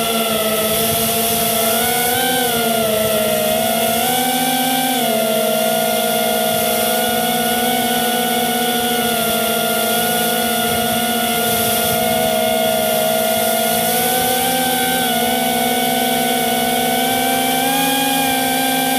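FPV drone's electric motors and propellers whining steadily, the pitch rising and falling several times as the throttle changes.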